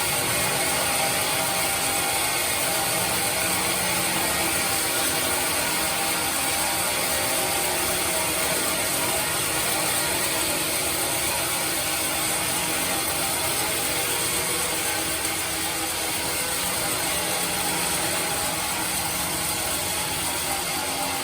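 Sawmill band saw machine running steadily, a dense, unbroken mechanical noise with a strong high hiss.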